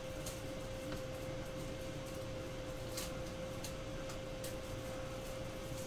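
Room tone: a steady hiss with a constant hum, and a few faint clicks.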